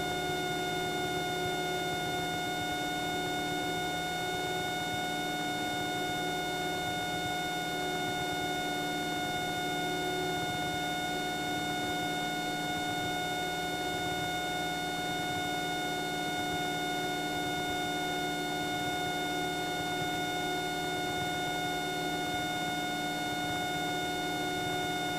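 Cessna 172's piston engine and propeller running steadily in flight, heard inside the cabin as an even drone with a steady high-pitched whine over it.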